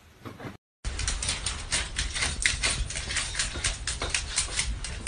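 Rapid, uneven clicking and tapping, about five a second, of a small dog's claws on a hardwood floor.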